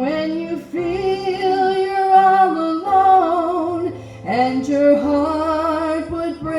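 A woman singing a slow gospel song, holding long notes with vibrato over a backing accompaniment with a steady bass line.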